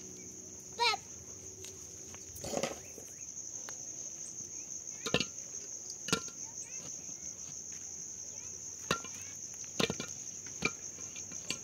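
Insects chirring steadily at a high pitch, with a few sharp knocks scattered through and a brief voice about a second in.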